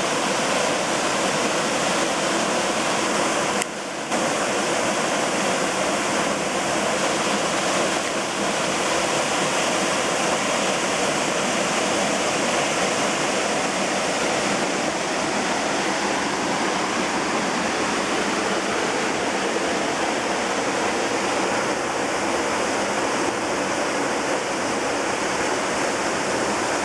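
Waterfall pouring steadily: a continuous loud rush of falling water, briefly dipping about four seconds in.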